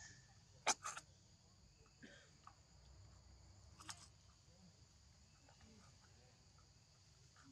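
Macaque biting and tearing a paper milk carton: a few sharp crackles, two close together about a second in and another near four seconds, over a steady high hum of insects.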